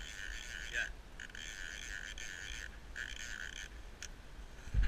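Fly reel's click check buzzing in stretches of a second or so as a hooked Atlantic salmon pulls line off the spool. A loud low thump near the end.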